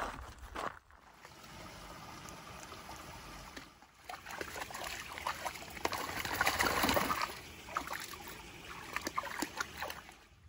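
Shallow creek water trickling over rocks, with small splashes and clicks from a dog wading in it. The sound is loudest in the middle.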